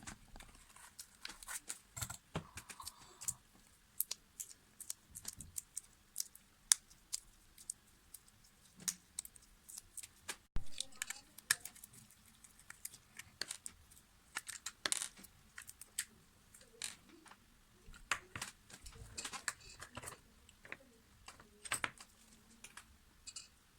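Irregular sharp clicks, taps and light metallic clinks of small hard parts being handled, knocked together and set down.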